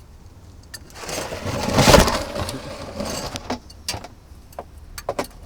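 Handling noise while working on the oil drain under a car: a scraping, rustling swell that peaks about two seconds in, then a series of light metallic clinks, the sound of the drain pan and tools being shifted and knocked about.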